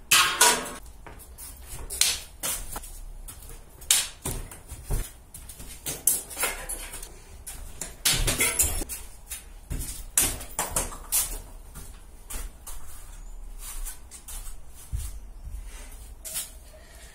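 Casio G-Shock 5600BB resin-cased watch being struck and knocked against hard surfaces: a dozen or so sharp knocks and clatters at uneven intervals, the loudest right at the start and about eight seconds in.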